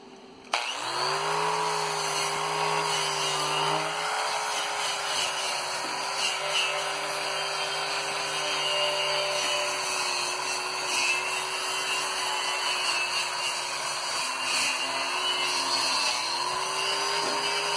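Electric angle grinder starting up about half a second in and running steadily as it works over a butt weld on a steel I-beam, its motor pitch dipping twice near the end.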